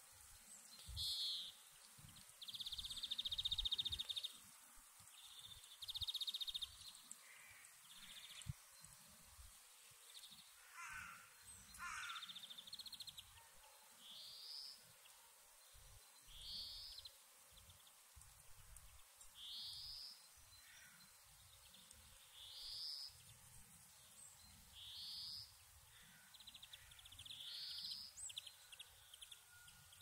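Forest songbirds singing: short, bright phrases repeat every two to three seconds, with a few trilled songs and a lower falling call near the middle, over a faint low rumble.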